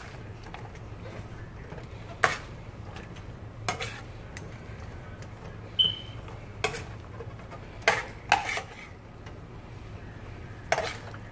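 Knife clinking and scraping against a metal frying pan as sauce-coated chicken wings are turned over in it: sharp clinks at irregular intervals, every second or two. A steady low hum runs underneath.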